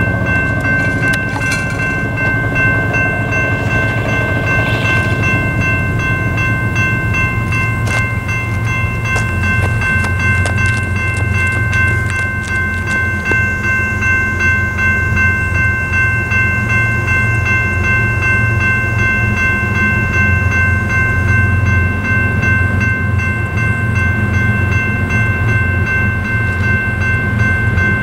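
Railroad crossing's General Signals Type 2 electronic bell ringing steadily as the gates come down. Under it is the low rumble of approaching diesel locomotives, growing stronger about a third of the way in.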